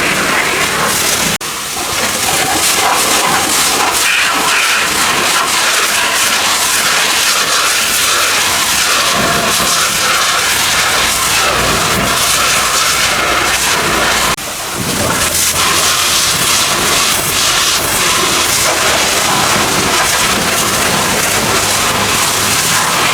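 Pressure washer spraying a high-pressure jet of water onto a car, a loud steady hiss that dips briefly twice, about a second and a half in and again about two-thirds of the way through.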